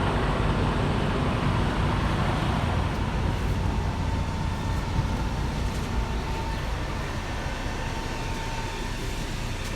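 Steady low rumble of motor vehicles, easing off slightly toward the end.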